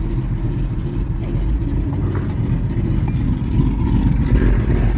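Car engine and road rumble heard from inside a moving car's cabin: a steady low drone that swells a little near the end.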